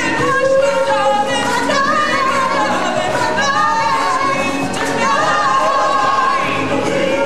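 Stage-show music with a group of voices singing over it, holding long, wavering notes.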